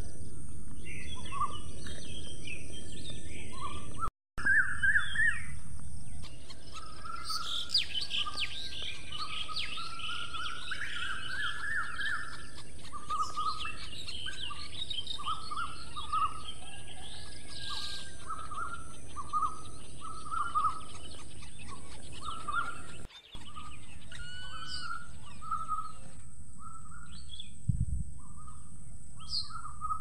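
Several birds chirping and calling over a steady high-pitched hiss, with a dense run of quick chirps through the middle. The sound cuts out abruptly twice, and there is a short dull thump near the end.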